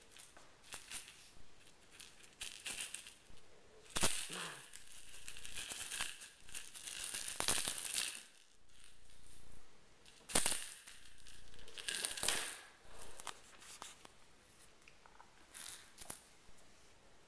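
RagaMuffin kittens playing with toys on a hardwood floor close to the microphone: bursts of rattling, scuffling and crinkling with sharp clicks. It is loudest about four to eight seconds in and again around ten to twelve seconds, with quieter scuffles between.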